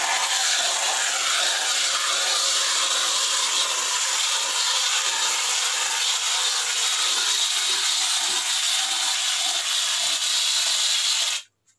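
Aerosol can of Gillette shaving foam spraying in one long, steady hiss that cuts off suddenly near the end.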